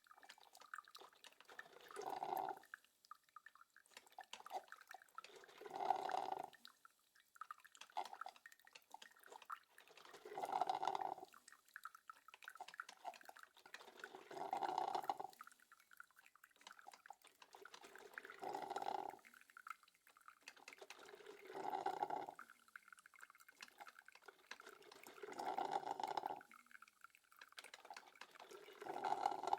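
Electric coffee maker brewing: a gurgling, sputtering burst of water about every four seconds, eight in all, with faint drips and ticks in between.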